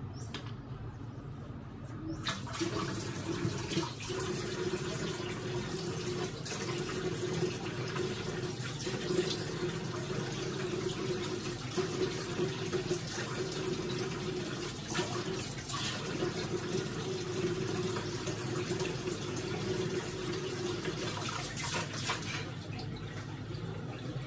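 Water running from a wall-mounted kitchen tap as hands are washed under it, with a steady hum in the flow. The tap comes on about two seconds in and is shut off near the end.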